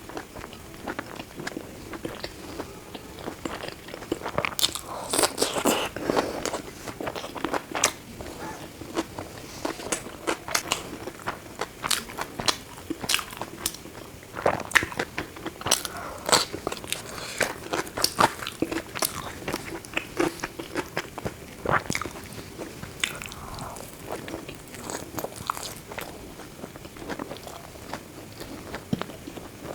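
A person eating close to the microphone: biting and chewing with many crisp crunches and clicks at an irregular pace.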